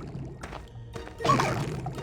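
Cartoon background music, with a short, sudden sound effect a little over a second in.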